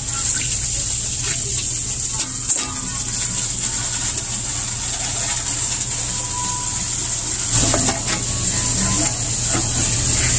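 Steady hiss over a low hum, with a few faint knocks and clicks as wiring is handled.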